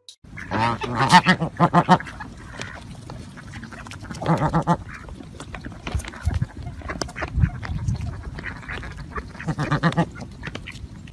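Mallard ducks quacking in three quick runs of calls, with a few low thumps in between.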